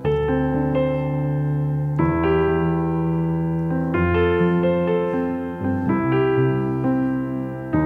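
Electric piano sound from a stage keyboard playing the slow instrumental introduction of a song: sustained chords, a new chord struck about every two seconds.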